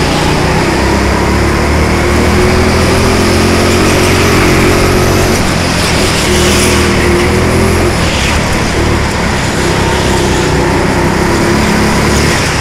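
Four-stroke petrol rental go-kart engine running hard, heard from the kart itself. Its note holds steady, falls away briefly about halfway through as the kart turns through a corner, then climbs again.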